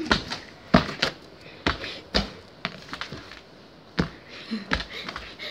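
Hands and knees knocking on bare wooden floorboards as a person crawls on all fours, a series of irregular thumps.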